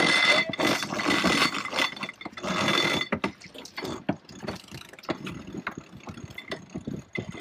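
Sailing-yacht winch ratcheting as a line is hauled in: a loud, fast buzz of pawl clicks for about the first three seconds, then quieter, scattered clicks.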